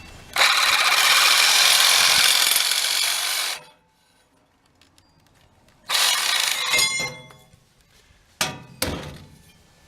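A power saw cutting 1 inch by 1/2 inch aluminum channel: one long cut of about three seconds that stops abruptly, then a shorter second cut about six seconds in that leaves the metal ringing. Two sharp knocks with a ringing tail follow near the end.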